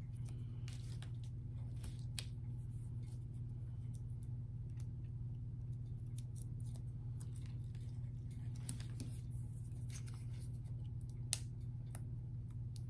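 Scattered small crackles and clicks of paper backing being peeled off small self-adhesive foam mosaic tiles, with the tiles being stuck down, over a steady low hum.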